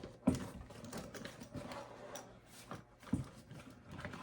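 Handling noises from armor parts being worked by hand: a few light knocks, about three, over soft rustling.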